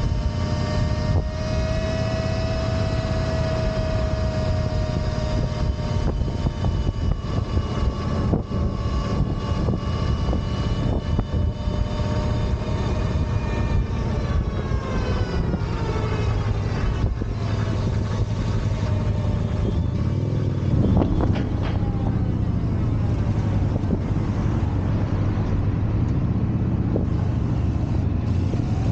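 Energica EsseEsse9 electric motorcycle under way: a pitched whine from the motor and drivetrain that falls about halfway through and rises again near the end, over a steady rushing wind and road noise.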